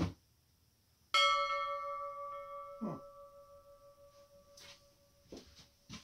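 A bell struck once about a second in, ringing with several steady tones that fade slowly over about four seconds, with a soft thump near the middle.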